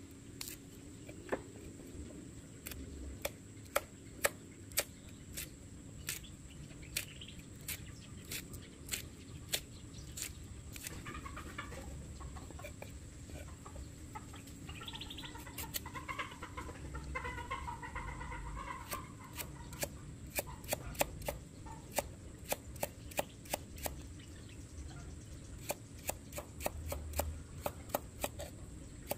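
Chef's knife chopping chilies and then carrot on a wooden chopping block: a run of sharp knocks, sparse in the middle and quickening to two or three a second in the last third. In the middle, chickens cluck for several seconds.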